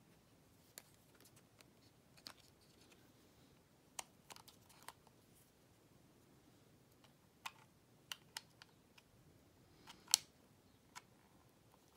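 Faint scattered clicks and taps as fingers handle a glossy plastic wireless-earbud charging case, with a short cluster around four to five seconds in and the loudest tap about ten seconds in.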